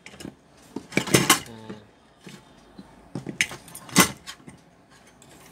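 Tools and parts clattering on a workbench as they are picked up and moved about: several sharp knocks and clinks, a group about a second in and the loudest about four seconds in.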